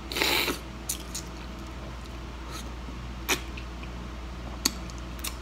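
A short, loud slurp as sun-dried clam meat is sucked from its shell, followed by a few scattered sharp clicks and smacks of lips and shell while eating.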